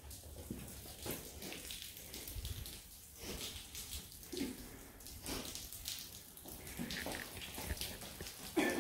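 Footsteps scuffing and crunching over grit and debris on a concrete floor, with irregular scrapes and rustles.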